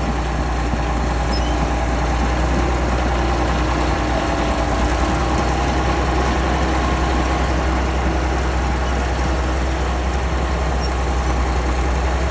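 Sixty-year-old bulldozer's engine running steadily at a constant pitch, with a strong low hum.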